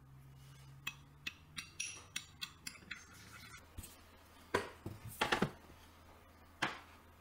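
A spoon clinking lightly against a small ceramic bowl as an oil dressing is stirred, then a few louder knocks as the bowl and spoon are set down on the table.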